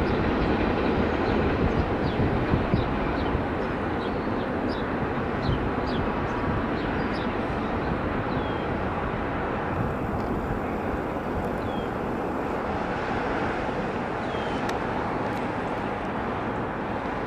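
The last cars of a CSX mixed manifest freight train rolling on the rails and drawing away: a steady rumble that slowly fades. A few faint, short, high chirps sound above it.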